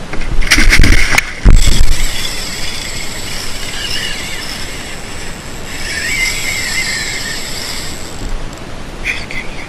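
A few loud thumps and rumbles in the first two seconds, then a high, steady whirr from a spinning reel working under load as a hooked yellowfin tuna pulls on the line; the whirr stops a little over a second before the end. A steady hiss of wind and water lies underneath.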